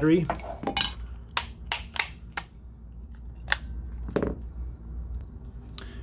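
AA batteries being pried out of a Sony TV remote's battery compartment and set down on the table: a string of sharp plastic-and-metal clicks and clinks, most of them in the first couple of seconds, then a few more spaced out.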